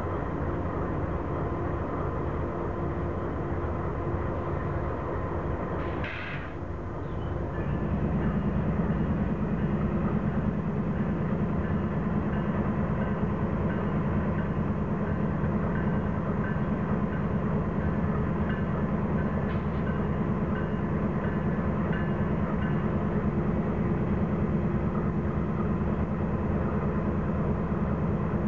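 Norfolk Southern diesel freight locomotive approaching and passing with a steady low engine rumble that grows clearly louder about eight seconds in and holds steady after that.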